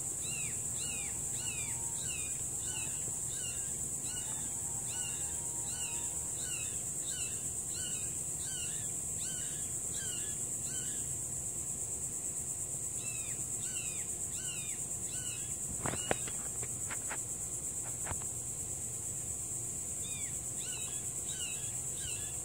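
Outdoor insect chorus: a steady high-pitched drone, with a short repeated chirp at about two a second that stops for a few seconds twice. A few sharp clicks come about two-thirds of the way through.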